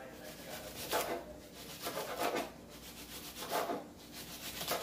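Cabbage being shredded by hand on a cutting board: three or four rasping strokes, about one every second and a bit.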